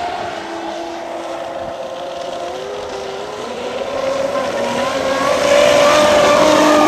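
Fast-electric RC offshore racing boats, a 50-inch Expresscraft Thunderbolt and a 60-inch Expresscraft MTI Cat, running at speed with a steady high motor whine from each hull. Several whine pitches climb about three to four seconds in, and the sound grows louder and hissier from about five seconds in as the boats come nearer.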